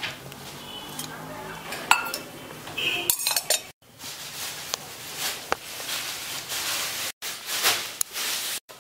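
A metal spoon clinking and scraping against a steel colander as boiled noodles are tossed. The sound comes as scattered sharp clinks and rustling scrapes and breaks off abruptly several times.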